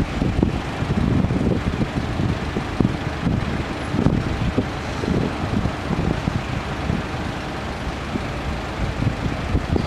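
Road traffic noise: engines of waiting and passing vehicles, an uneven low rumble with no crossing bell or train audible.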